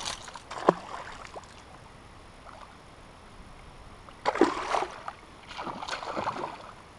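Water splashing beside a small boat as a small hooked pike is played in: a sharp splash under a second in, then two bursts of splashing a little past four seconds and around six seconds.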